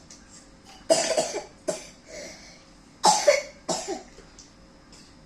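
Someone coughing: four short, sharp coughs in two pairs.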